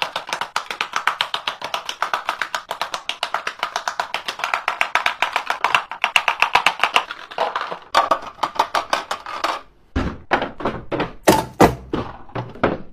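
Lipstick cases clicking into the slots of a clear acrylic organizer in rapid, even succession, several clicks a second. Near the end this gives way to a few slower, heavier knocks.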